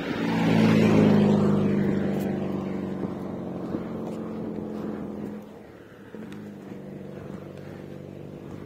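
A motor vehicle's engine passing close by, loudest about a second in and fading away over the next few seconds.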